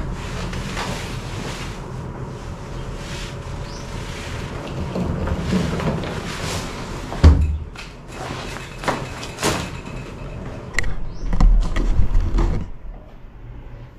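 A hard-shell rolling suitcase being moved across a wooden floor: clatters and knocks, a heavy thump about seven seconds in, and a low rumble near the end.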